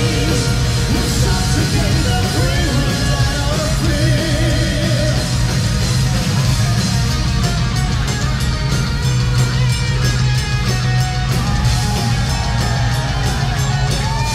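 Live symphonic metal band playing loudly, with electric guitars, bass and drums and a voice singing over them.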